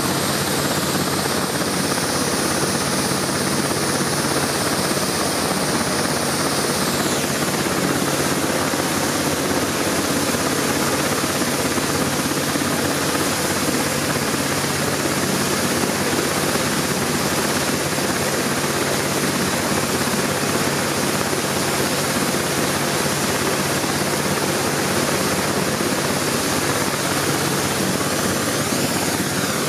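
BK 117 twin-turbine helicopter running on the ground with its rotors turning, a steady turbine whine and rotor noise as it waits on the pad before lift-off. A high whine drops away about seven seconds in.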